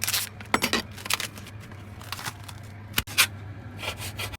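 Irregular scrapes and knocks of food and utensils being handled in a kitchen, about seven in all and roughly a second apart, over a steady low hum.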